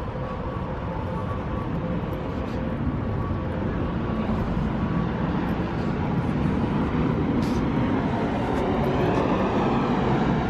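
Steady road traffic noise from passing vehicles, growing louder near the end as a vehicle goes by with a gliding pitch.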